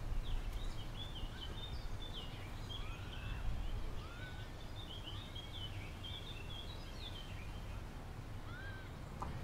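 Small birds chirping and twittering in a steady chorus, with a few short slurred whistles among them, over a low steady rumble of outdoor noise.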